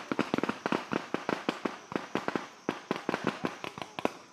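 Rapid, irregular small-arms fire from several rifles at once, the shots overlapping in a steady exchange of fire.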